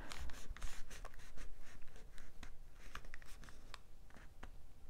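Fingers pressing and rubbing glued cardstock down around a candy dome's base, the paper rustling with many small, irregular crinkling clicks.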